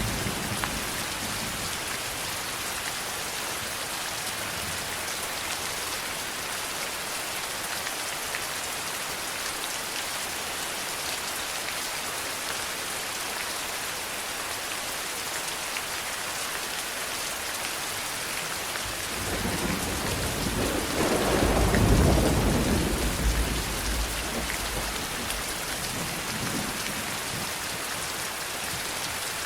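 Steady heavy rain falling on a surface, with a roll of thunder that builds about two-thirds of the way through, rumbles loudest for a couple of seconds and fades away.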